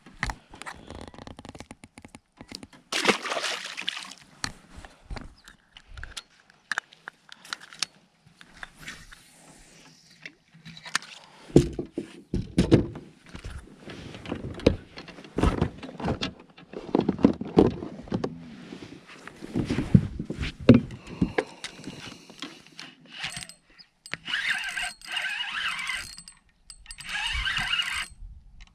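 Knocks, clicks and scrapes of gear being handled aboard a small fishing boat, with a run of heavier thumps in the middle and a steadier higher-pitched rasp near the end.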